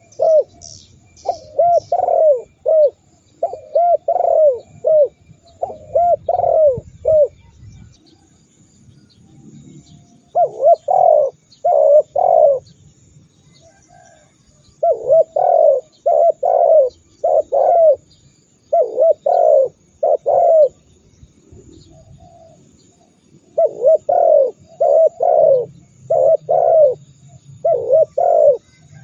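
Spotted dove (tekukur) cooing in repeated phrases of three to five coos, with pauses of a second to a few seconds between phrases. A few faint high chirps are heard near the start.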